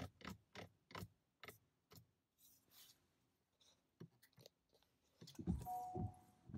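Car controls clicking as a toddler works a steering-column stalk and the push-button start: a run of sharp clicks about three a second that slows, then scattered clicks. Near the end a car's electronic chime begins, a steady tone repeating in pulses.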